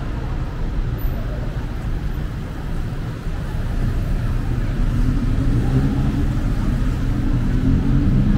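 City street traffic: a steady low rumble of vehicles that grows louder, with one engine rising in pitch as it speeds up through the second half.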